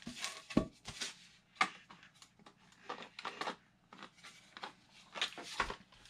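Handling noise from a 3D-printed plastic model turbofan engine being lifted and fitted onto its stand: scattered plastic clicks and knocks, with a couple of dull thumps about half a second in and near the end.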